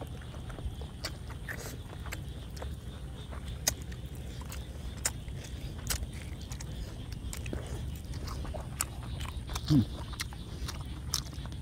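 Eating sounds of boiled pork cheek: biting, chewing and wet mouth clicks and smacks as two people tear at and eat the meat. A brief low hum just before ten seconds in stands out as the loudest sound.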